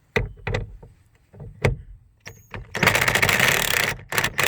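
A few handling knocks, then an impact driver spins up with a brief whine and hammers in two rapid bursts, loosening the seatbelt anchor bolt.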